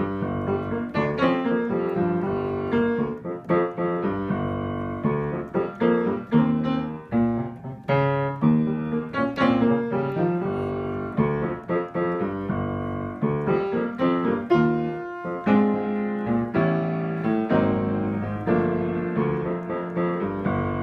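Estonia acoustic piano played with both hands: a flowing passage of ninth chords built as seventh, ninth, third and fifth, struck one after another and left to ring.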